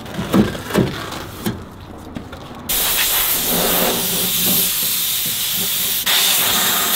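Compressed-air blow gun on an air hose blasting: a loud, steady hiss that starts suddenly about two and a half seconds in and steps up louder near the end. Before it there are a few short knocks.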